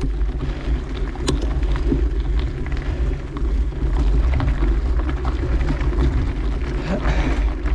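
Steady low wind rumble on the microphone together with tyre and trail noise from a mountain bike being ridden, with scattered small clicks and rattles.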